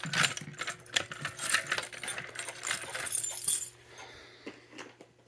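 Metal keys jangling and clinking in a busy run for about three and a half seconds, then a few fainter clicks.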